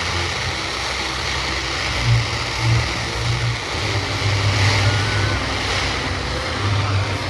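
Fireworks bursting: three low booms in quick succession about two seconds in, then longer runs of rumbling booms over a steady noisy haze.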